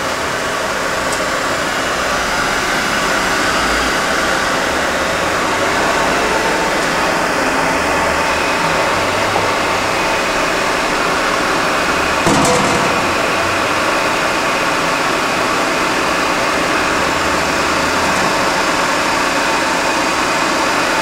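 1980 Myford MG12-HA cylindrical grinder running with its hydraulics on: the grinding wheel motor and hydraulic pump give a loud, steady whir. A short clunk sounds about twelve seconds in.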